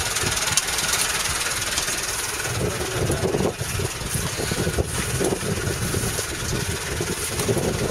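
Boat engine idling steadily, mixed with wind and sea noise.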